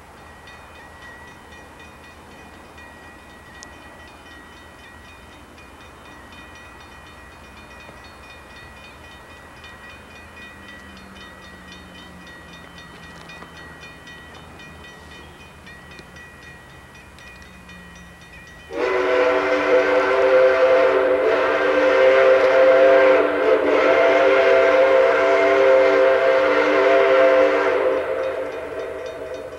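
Steam whistle of a Baldwin 2-8-2 steam locomotive, Oregon Pacific & Eastern No. 19. After a long quieter stretch of the approaching train, the whistle sounds one long, loud blast starting about two-thirds of the way in. The blast holds steady for about nine seconds and then dies away near the end.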